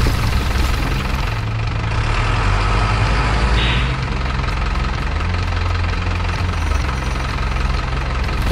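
Steady low diesel-truck engine idle from a radio-controlled model dump truck as its bed tips soil, with a brief hiss about three and a half seconds in.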